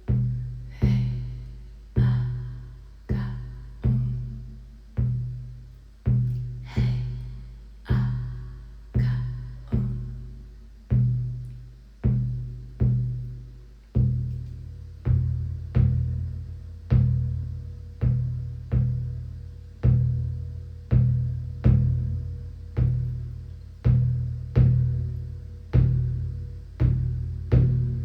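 Deep shamanic drum beaten at a steady pulse of about one stroke a second, each stroke ringing low and fading before the next. About halfway through, the drum's low tone grows fuller.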